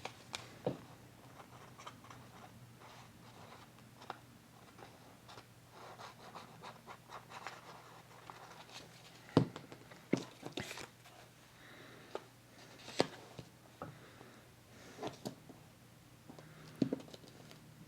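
Paper being handled and pressed down by hand: soft rustling and rubbing, broken by a few sharp light taps.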